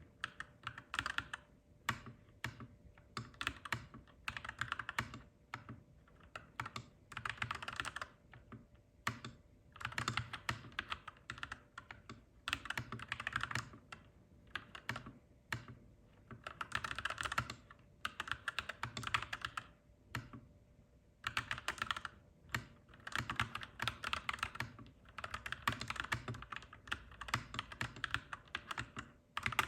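Typing on a clacky mechanical keyboard: quick runs of key presses lasting a second or two, broken by short pauses.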